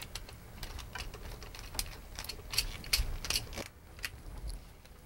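Irregular small clicks and taps of a screwdriver and a plastic circuit breaker as the two hot wires are fastened in the breaker's terminals and it is fitted to the sub panel. The clicks come thickest in the middle and thin out near the end.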